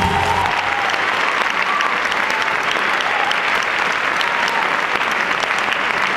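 An audience applauding steadily, starting as the song's final note cuts off about half a second in.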